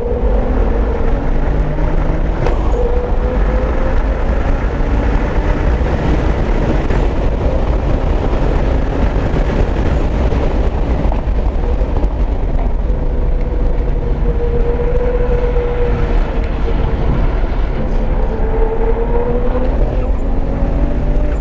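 Single-turbo BMW 335i's turbocharged inline-six running hard on a race track, a loud steady engine and road rumble whose pitch rises and falls gently without big rev sweeps.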